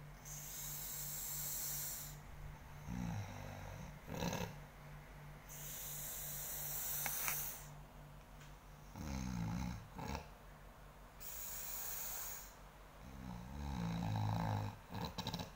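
A sleeping person snoring. Roughly every five to six seconds a hissing breath is followed by a low, rattling snore, three times over, with a steady low hum underneath.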